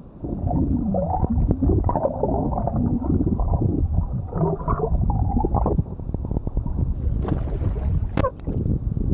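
Orcas calling underwater: wavering, gliding squeals over a heavy low rumble of water against the microphone. Near the end the calls stop and two short, sharp splashy sounds come through.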